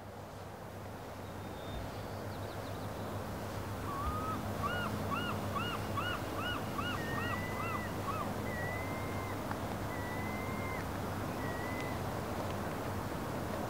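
Bird calls over a steady background hiss that fades up at the start: a run of about eight quick rising-and-falling notes, then several longer drawn-out whistles.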